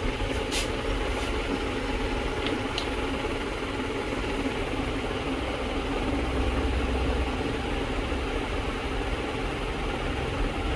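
Steady low mechanical rumble, like an idling engine, with a brief click under a second in and two faint ticks near three seconds.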